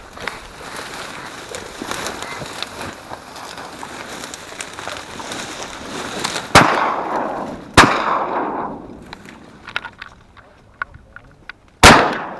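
Shotgun fired three times, each blast trailing off: two shots about a second apart, then a third about four seconds later, while ducks are shot at.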